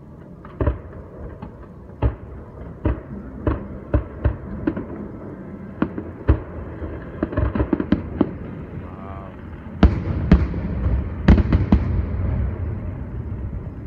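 Aerial fireworks bursting: a string of sharp bangs at irregular intervals, a quick run of smaller pops in the middle, then a few louder booms with a rolling rumble after them near the end.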